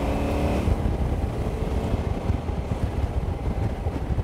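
KTM 990 SMT's V-twin engine rising in pitch as the bike accelerates, fading after about half a second into a steady low rumble of wind buffeting the microphone while riding.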